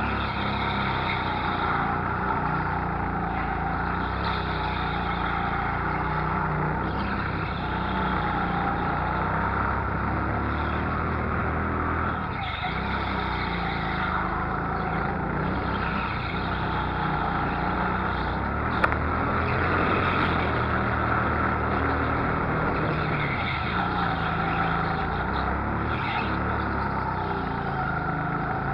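Go-kart engine running hard, heard from on board, its pitch rising and falling over and over as the throttle opens and closes through the corners. A single sharp click sounds about two-thirds of the way through.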